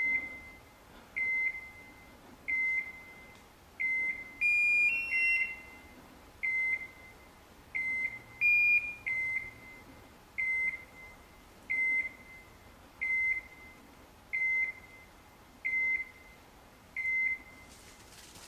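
Electronic beeper collar on a hunting setter, giving a short high beep about every 1.3 seconds, with a few higher, longer tones twice near the middle. This steady, quick beeping is the collar's point mode, which signals that the dog is standing still on point.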